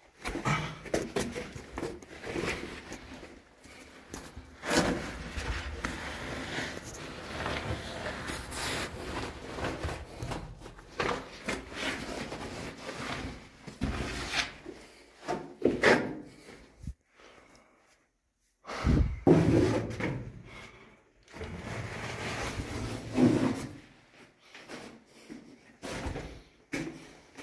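Irregular knocks, scrapes and rustles of a person moving through a rock cave passage while carrying a phone: steps on stone and the phone rubbing against clothing and rock. The sound breaks off briefly a little past halfway, then the knocks and scrapes resume.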